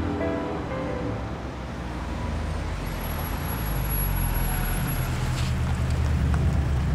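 A BMW saloon car approaching and slowing to pull up at the kerb, its engine and tyres making a low rumble that builds and is loudest near the end. A soft music cue fades out in the first second.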